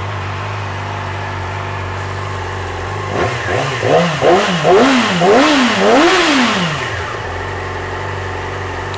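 A 2011 Yamaha YZF-R6's inline-four engine idling steadily. About three seconds in it is revved in about five quick blips, each rising and falling in pitch. It then settles back to idle.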